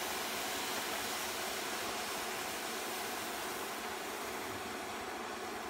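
Milk sizzling in a hot non-stick pan over freshly toasted instant oats: a steady hiss that slowly fades toward the end as the milk takes the heat.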